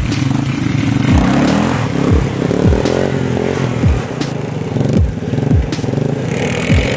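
ATV engines running and revving, a Yamaha Warrior quad closest, the pitch rising and falling as the throttle is worked. Deep thumps that drop in pitch recur about once a second underneath.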